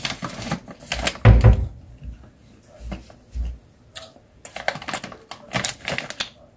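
A plastic snack packet crinkling as it is handled and turned over, in crackly spells, with a couple of dull bumps about a second in.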